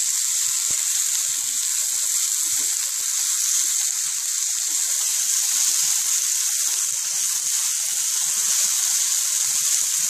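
Cut okra (bhindi) frying in hot oil in a nonstick pan: a steady high sizzle. It is stirred now and then with a wooden spatula, giving light scattered scrapes and taps.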